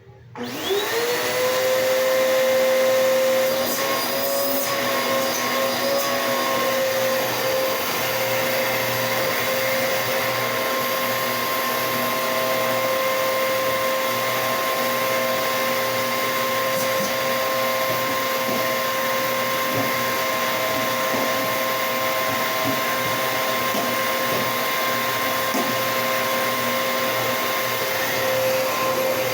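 Bissell PowerForce Bagless vacuum cleaner switched on, its motor spinning up with a rising whine in the first second, then running with a steady hum.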